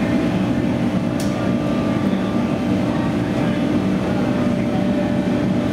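Forge-shop machinery running with a steady drone and a low hum, with no hammer blows.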